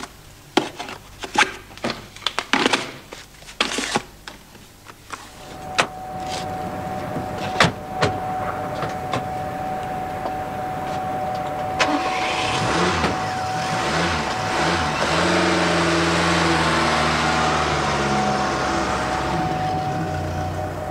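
Sharp clicks and knocks for the first few seconds, then a car's engine and road noise as it drives, growing louder from about twelve seconds in.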